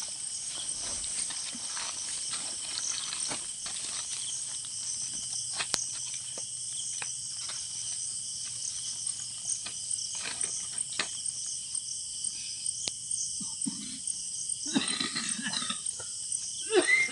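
Crickets trilling steadily in a night-time field, with scattered small clicks and rustles from handling, and a brief voice near the end.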